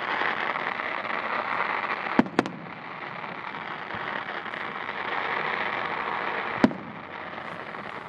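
Aerial fireworks bursting: two sharp bangs close together about two seconds in and another near seven seconds, over a steady hiss.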